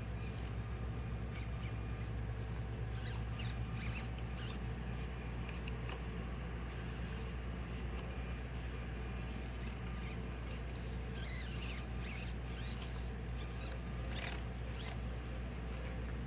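Axial SCX24 micro RC crawler working its way over rocks: scattered small clicks and scrapes of its tires and chassis on rock, with the faint whir of its tiny motor and gears, over a steady low hum.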